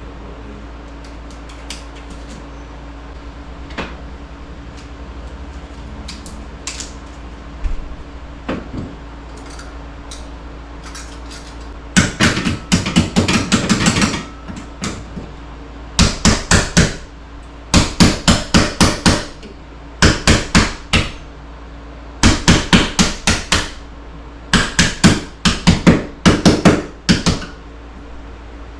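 Impact driver running in short bursts, each about a second of rapid hammering clicks, over and over with brief pauses, as screws are driven into the wall studs. Before that, a few scattered light knocks.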